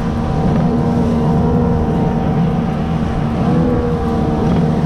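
Small fishing boat's outboard motor running at a steady cruising speed, with a constant engine hum over the rush of air and water.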